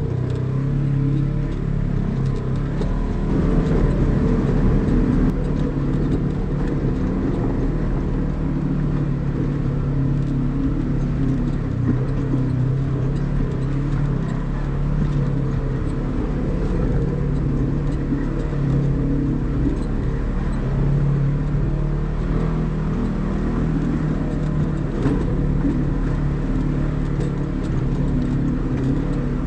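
Polaris RZR side-by-side's engine running at a steady pitch as it drives over a rough, rocky trail, with scattered small knocks over the drone.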